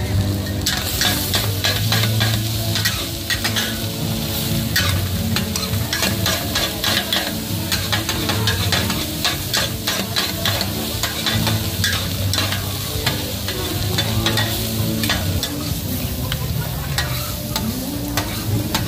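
Street-stall stir-frying: a metal spatula scraping and clacking rapidly against a hot pan while the food sizzles, over a low steady hum.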